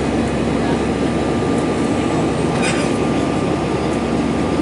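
Steady drone of an Airbus A320-family airliner's jet engines and rushing air, heard inside the cabin during the climb after takeoff, with a steady hum running through it. A short hiss a little past halfway.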